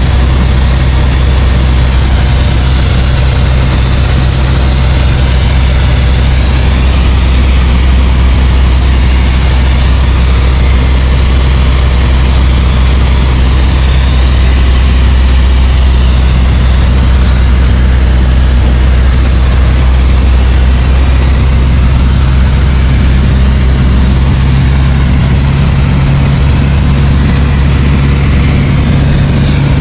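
Light aircraft's piston engine running steadily at a constant, loud drone, with a slight shift in its note about 25 seconds in.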